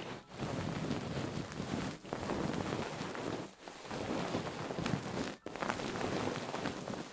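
Close-up ASMR rustling and scrubbing on the microphone, like hair being washed, in long strokes with short breaks about every one and a half to two seconds.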